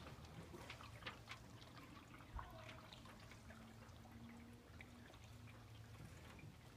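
Faint water sounds: small drips and trickles with scattered light ticks, over a low steady hum.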